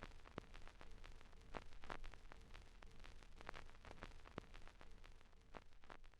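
Near silence: a faint low rumble with scattered soft clicks, fading out at the end.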